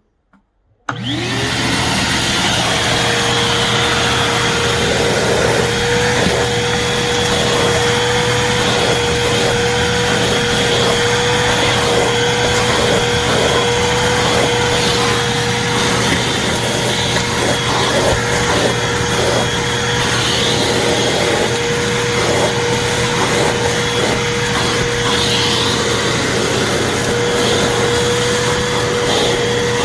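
Small BLACK+DECKER 1-gallon wet/dry shop vacuum switched on about a second in. Its motor rises quickly to speed, then runs steadily.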